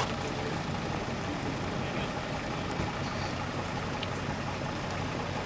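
Steady low hum of idling vehicle engines, with faint voices of people walking.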